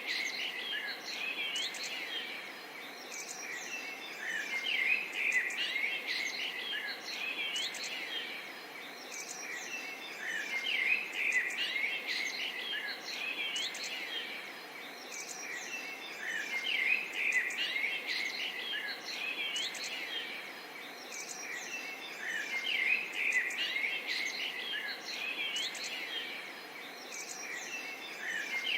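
A dense chorus of many birds chirping and calling at once, with quick overlapping tweets and short sweeping calls, over faint insect buzz. The chorus swells and eases every few seconds.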